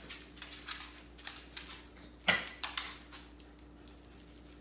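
Chiweenie's claws clicking and tapping on a hard floor as it hops on its hind legs, a quick irregular run of clicks with one louder tap a little past two seconds in, thinning out after about three seconds.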